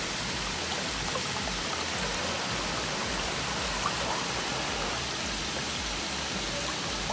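Spring water running steadily over rocks.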